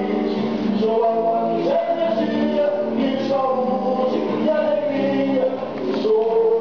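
Music with sung vocals.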